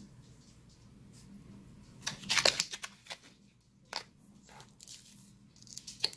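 Plastic pouch of frozen yukgaejang crinkling and rustling as it is gripped and turned over in the hands, in a few short bursts, the loudest about two seconds in.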